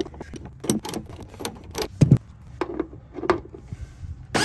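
Irregular metallic clicks and clinks of a hand ratchet and socket working a 10 mm bolt that spray-on bed liner has glued in, with a heavier knock about two seconds in.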